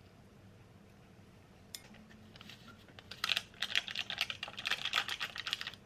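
A rapid, dense run of small crackling clicks, starting about three seconds in after a quiet start.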